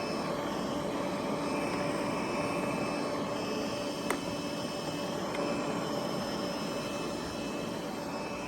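Steady mechanical drone with a few faint constant tones, and one short click about four seconds in.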